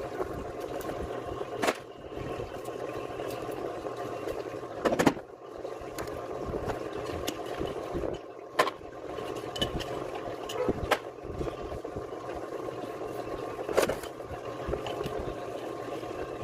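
A steady mechanical hum with a sharp knock or clank every few seconds, about five in all.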